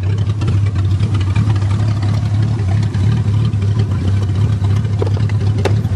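A 1982 Toyota Cressida's engine idling steadily, heard with the hood open, after restarting from a stall. A couple of light clicks about five seconds in.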